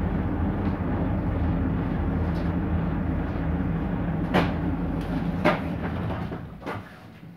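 Perkins Phaser 110Ti four-cylinder turbo-diesel of a 1998 Autosan H6-20.03 bus running steadily under way, heard inside the cabin, with a few sharp knocks and rattles from the body about four and five seconds in. The engine quietens near the end.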